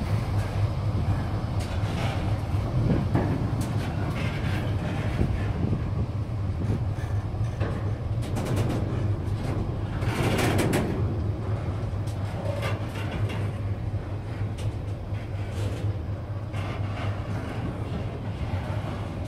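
Container freight train's wagons rolling past, a steady low rumble from the wheels on the rails with repeated clicks and knocks, and a louder clatter about ten seconds in.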